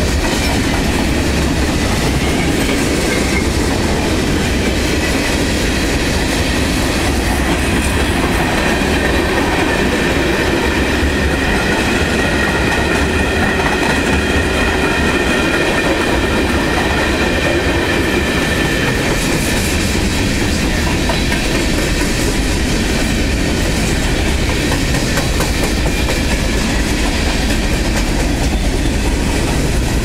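Freight cars of a CSX manifest train, tank cars and boxcars, rolling past close by, their wheels clacking steadily over the rail joints. A high, steady tone rises over the rolling noise from about eight seconds in and fades by about twenty seconds.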